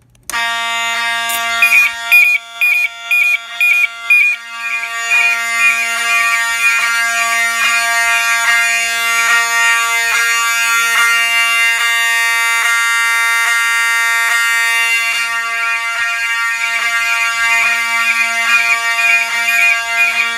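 Fire alarm sounding, set off by closing the general alarm key switch on a fire alarm pull station. A loud, steady buzzing tone with a chirp repeating about twice a second over it, broken by a few short dropouts in the first few seconds.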